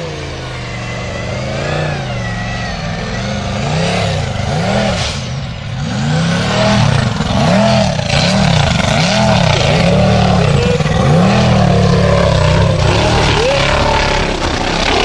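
Formula offroad buggy's engine revving hard in repeated surges, pitch rising and falling about once a second, as its tyres spin and throw dirt on a steep gravel climb. It grows louder about halfway through.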